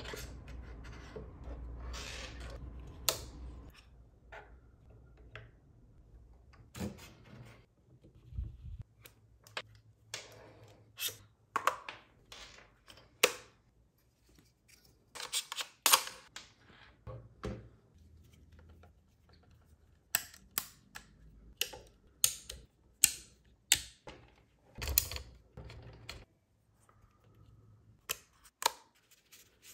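Irregular sharp clicks, snaps and clacks of metal and plastic camera-rig parts being handled and locked together on a DJI RS3 Pro gimbal: handles, mounting plates and clamps clicking into place. A low rumble of handling comes first, fading after a few seconds.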